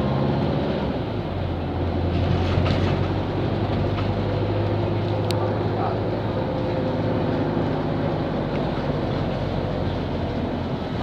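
Engine drone and road noise inside a moving road vehicle, steady throughout, with a deeper hum that strengthens about a second in.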